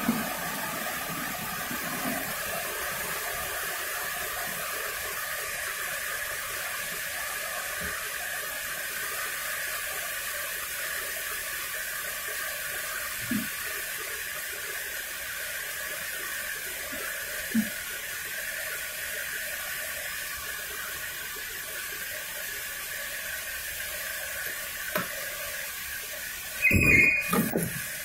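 LG MC-767W microwave oven running with a steady whooshing hum, its cooling fan blowing. A few light clicks, and a brief louder knock near the end.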